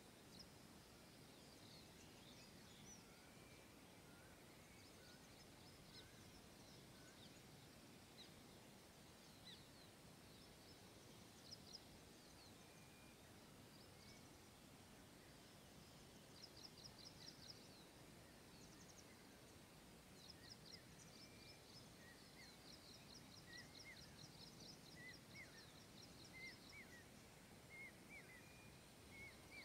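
Faint songs of small birds: many quick high chirps and fast rattling trills, with a string of lower chirps joining in the second half, over a steady outdoor hiss.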